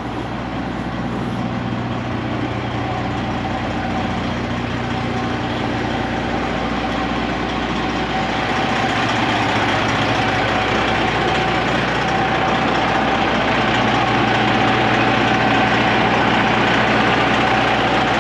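An engine idling steadily, growing gradually louder.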